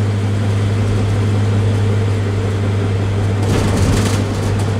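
Steady low hum of a car's engine and road noise heard from inside the moving car, with a short hiss about three and a half seconds in.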